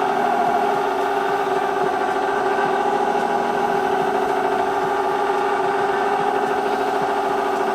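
A QUADRO Comil 194S conical mill running steadily with a constant whine from its motor and impeller.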